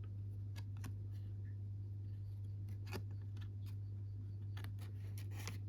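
Paper cards and booklets being handled: scattered soft rustles and light clicks, the sharpest about three seconds in, over a steady low hum.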